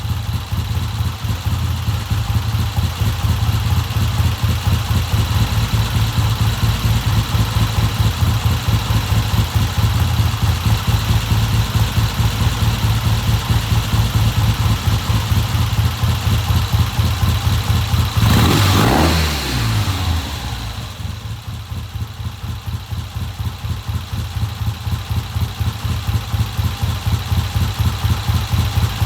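A 1970 Triumph motorcycle engine, running on a newly fitted Amal Premier carburettor, idles with an even beat. About two-thirds of the way in it is blipped once, rising and falling in pitch, then settles back to a steady idle; the owner judges it to be running well.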